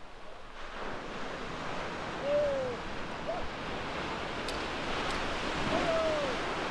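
Ocean surf washing onto a sandy beach, a steady rushing wash that swells up about half a second in. A few short, low hooting calls sound over it, three times.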